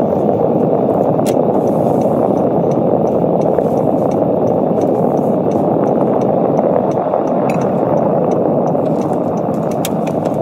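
Steady car-cabin noise while driving: an even rush of road and engine noise, with a few faint clicks.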